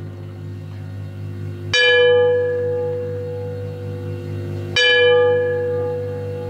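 A bell-like tone struck twice, about three seconds apart, each ringing on and slowly fading over a steady, low, wavering drone.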